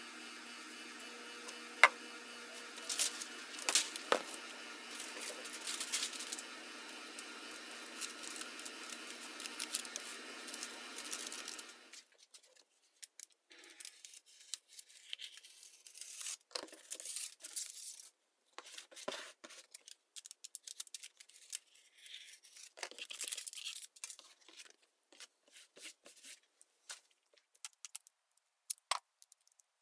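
Aluminium foil crinkling and scraping in short, irregular bursts as it is pressed onto a plastic panel and trimmed, with a few sharp rips of tape being pulled off a roll near the end. For the first twelve seconds a steady hiss with scattered clicks of handling lies under it, and it cuts off abruptly.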